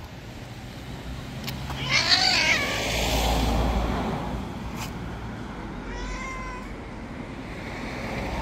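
A cat meowing twice: a loud call about two seconds in and a shorter one about six seconds in.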